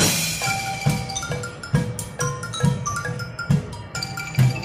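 Upbeat music with a steady drum beat, about one low thump a second, and short marimba-like mallet notes.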